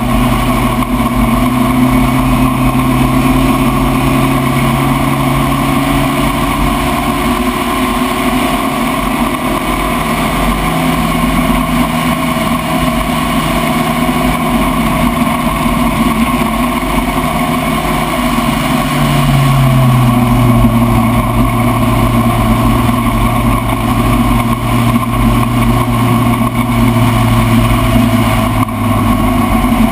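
Spec Racer Ford race car engine running hard under load. Its note holds steady, drops sharply about two-thirds of the way through, then drops again near the end, over steady wind and road noise.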